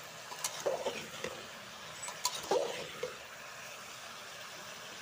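A spoon stirring and scraping vegetables in an aluminium pressure cooker, with scattered clinks of the spoon against the pot and light sizzling. The stirring stops about three seconds in, leaving a steady background hum.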